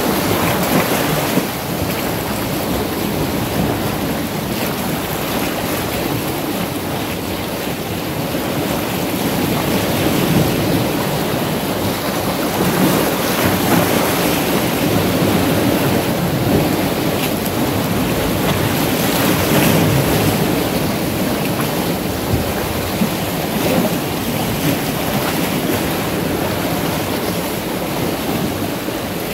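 Small sea waves washing in around shoreline boulders: a steady rushing of surf that swells and eases.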